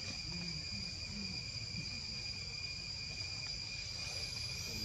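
Steady high-pitched insect drone from crickets or cicadas, holding a few constant pitches. Near the end a thin, high, rising whistled call sounds over it.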